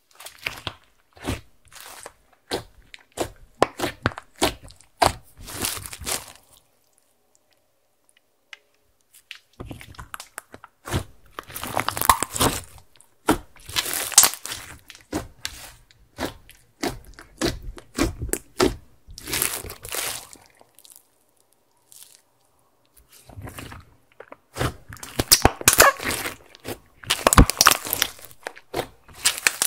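Hands squeezing and stretching a large mass of glittery clear slime mixed with makeup: sticky squishing with dense runs of quick crackling clicks and pops. The handling comes in three spells, with short pauses about six seconds in and again a little past twenty seconds.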